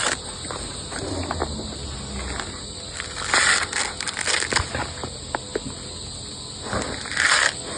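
Insects trilling steadily in the background, with scattered clicks and two louder rustling, crunching bursts, about three and a half seconds in and again near the end.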